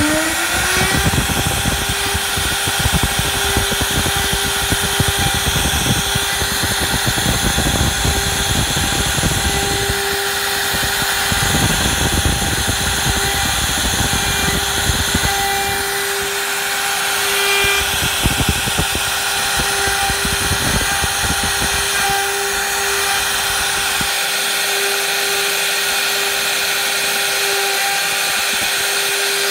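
CNC router spindle whining at a steady high pitch while its carving bit cuts a relief pattern into hardwood, with rough cutting noise underneath. The spindle winds up to speed in the first second, and the cutting noise thins out over the last few seconds.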